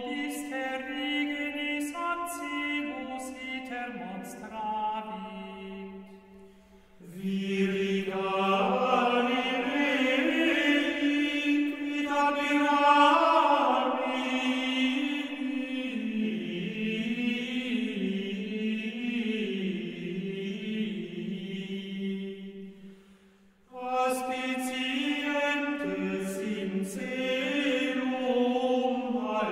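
Medieval Latin plainchant sung by a vocal ensemble, in long, slowly moving held phrases. The phrases break off briefly about six seconds in and again near the end before the singing resumes.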